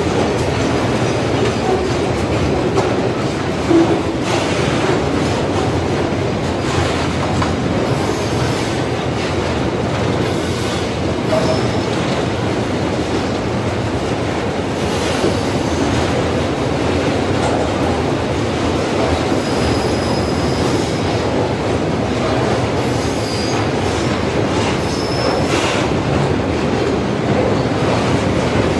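Freight train of flat wagons loaded with steel coils rolling steadily past, with the continuous rumble and clatter of wheels on rail and a few brief high wheel squeals partway through.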